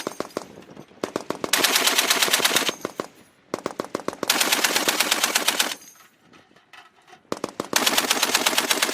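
M2A1 .50-calibre heavy machine gun firing in bursts of automatic fire: the end of one burst right at the start, then three bursts of about a second and a half to two seconds each, the shots coming in a rapid even rhythm, with the report echoing away in the pauses between bursts.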